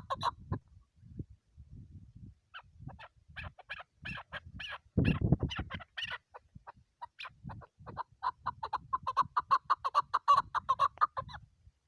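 Chukar partridge calling: a series of short clucking chuck notes, scattered at first and then running together at about six notes a second from about eight seconds in. A louder low rumble sounds about five seconds in.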